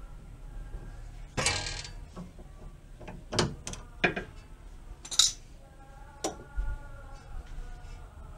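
Metal clinks and clanks of a 16 mm socket and wrench being fitted and handled on a stabilizer link nut: a short scrape about a second and a half in, then a handful of separate sharp clinks.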